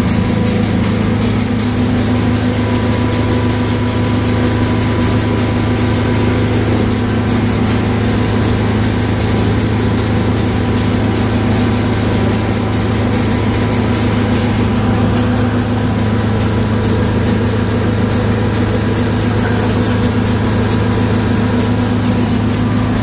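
Double diaphragm pump and drum screen running together, making a steady mechanical hum that does not change.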